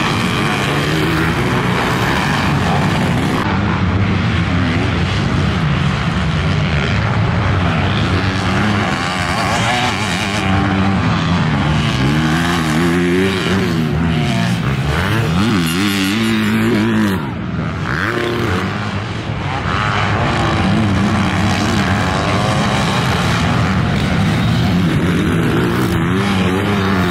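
Several motocross dirt bikes racing. Their engines rev up and down over one another through the gears, with a short drop in level about two-thirds of the way through.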